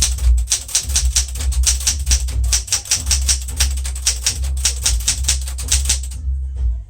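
Rapid, steady typing on a 1975 Smith-Corona Galaxie Twelve manual typewriter: a quick run of key and typebar strikes, about five or six a second, that stops shortly before the end.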